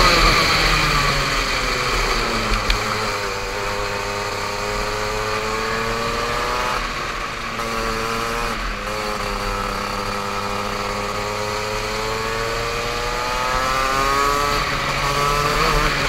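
Racing kart engine on track, heard from the driver's helmet: its pitch falls off as he lifts for corners and climbs again under acceleration, in two long pulls with a brief dip between them and another fall and rise near the end. Wind rushes over the microphone throughout.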